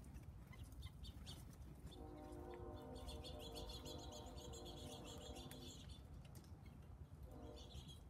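Small birds chirping faintly, short high calls scattered through. A steady hum of several tones comes in about two seconds in, fades near six seconds and returns near the end.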